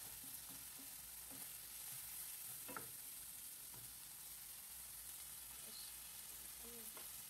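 Faint sizzling of vegetables and scrambled egg frying in a wok with a little freshly added oil, as a wooden spatula stirs them, with a few soft clicks of the spatula on the pan.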